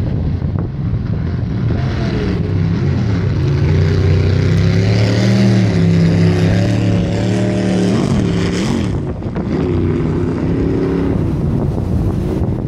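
Racing jet boat's engine running hard as it passes through rapids, growing louder to a peak about five to seven seconds in. Its pitch dips and climbs twice around eight to nine seconds, then it eases off. Rushing whitewater and wind on the microphone sound underneath throughout.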